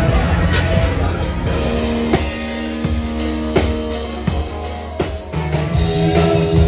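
Rock music with electric guitar and a drum kit: drum hits on a steady beat under held guitar notes.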